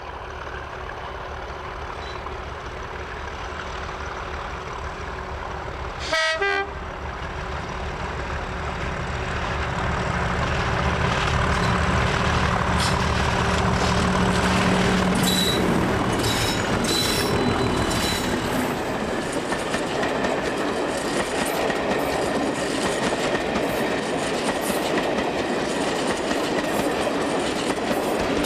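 English Electric Class 37 diesel locomotive 37250 working hard under power, its engine growing louder as it approaches and passes close by, with a short horn blast about six seconds in. Wheels then click over the rail joints as the coaches go by, and a second Class 37 comes past on the rear near the end.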